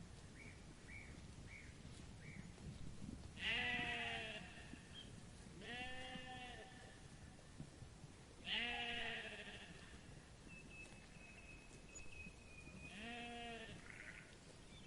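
Sheep bleating four times, each call a wavering baa about a second long, spaced a few seconds apart. Faint short high chirps come before the first bleat.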